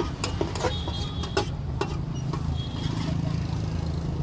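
Metal spatula clanking and scraping against a large wok during stir-frying, in irregular sharp knocks a few times a second, over a low steady rumble.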